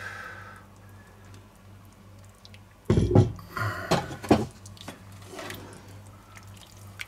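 Potato stew simmering in an open cast-iron Dutch oven, faint bubbling over a steady low hum. A few thumps and clatters come about three and four seconds in.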